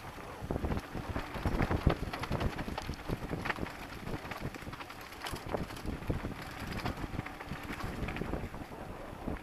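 Wind buffeting the microphone of a camera on a mountain bike rolling fast down a rough, stony dirt track, with irregular clattering knocks as the bike and camera jolt over the stones. The knocks pick up about half a second in and are heaviest a second or two in.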